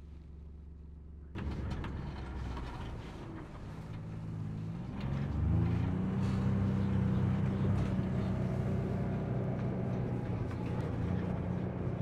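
John Deere Gator utility vehicle's engine. A faint low hum jumps up suddenly about a second and a half in. The engine then revs up with a rising pitch around four to five seconds in and runs steadily under load as the Gator drives through slush.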